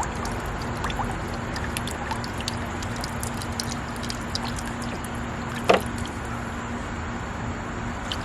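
AISITIN 2.5 W solar fountain pump spraying water through its bullet nozzle and splashing steadily back into the basin, with scattered small drips and one brief louder splash or knock about five and a half seconds in.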